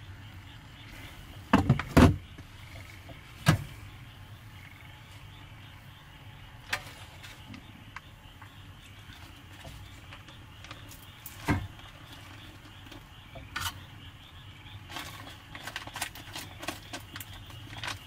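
Clay donabe rice pot handled as cooked rice is served: a couple of sharp clunks just under two seconds in as the pot lid is set down, then scattered knocks and a run of light clicks near the end as rice is scooped into a bowl. A low steady hum runs beneath.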